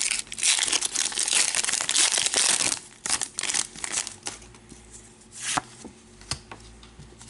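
A Pokémon card booster pack's foil wrapper crinkles loudly as it is torn open and peeled for about the first three seconds. Softer scattered rustles and taps follow as the cards are slid out and handled.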